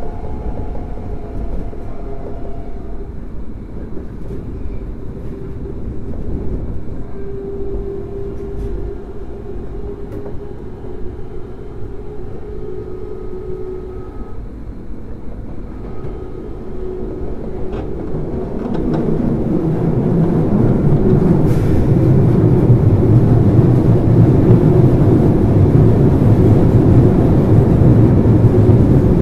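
Osaka Metro 23 series subway car (unrenewed) running, heard from inside the car: a continuous rumble of wheels on track with faint steady tones from the traction equipment. The running noise grows markedly louder and heavier about two-thirds of the way in.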